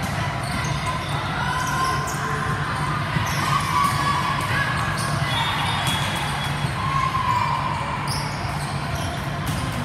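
Indoor volleyball rally: the ball is struck in sharp slaps, and shoes give short squeaks on the court, with voices calling in an echoing gym over a steady low hum.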